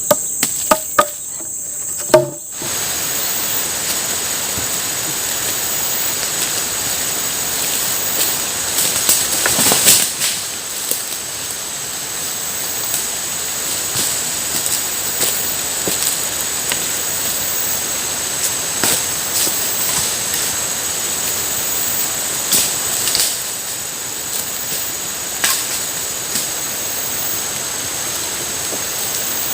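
Heavy tropical rain pouring down steadily, with insects keeping up a high, steady shrill above it. In the first two seconds, before the rain sets in abruptly, a few sharp knocks sound over the insects.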